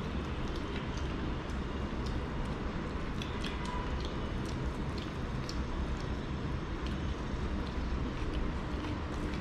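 Faint scattered clicks and scrapes of fingers mixing rice and curry on dinner plates, over a steady low background rumble.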